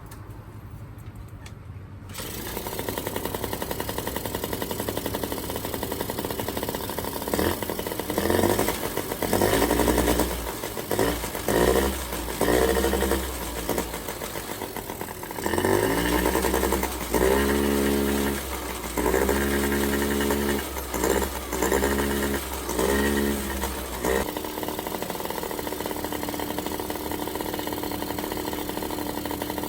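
Yamaha Jog 3KJ scooter's small two-stroke single-cylinder engine running after its carburettor overhaul: idling, then revved up and down about a dozen times with throttle blips, settling back to a steady idle near the end.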